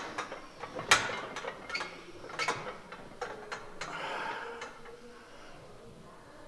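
Sharp metal clicks and clanks from a heavily loaded barbell sitting in its bench-press rack as the lifter sets his grip; the loudest clank comes about a second in, with lighter ticks after.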